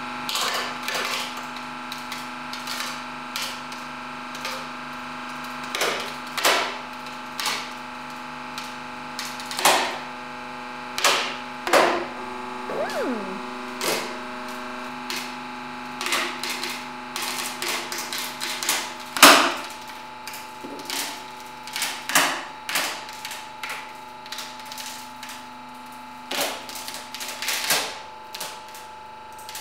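Glued birch furniture board cracking and splintering as a hydraulic press bends it to failure: a run of sharp, irregular cracks that come thicker and faster as the board gives way, the loudest about 19 seconds in, over a steady machine hum.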